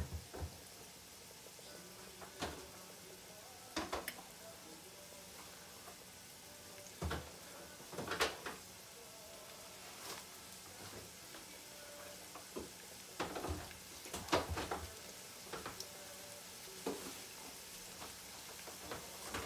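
Sliced onions frying gently in oil in a nonstick pot over low heat, caramelizing: a faint steady sizzle with scattered crackles every second or two.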